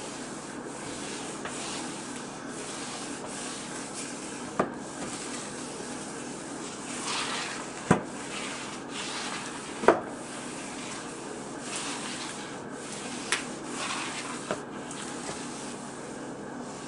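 Swiffer Sweeper mop with a wet pad rubbing back and forth across a tile floor, a swish with each stroke. A few sharp knocks cut through, the loudest near the middle.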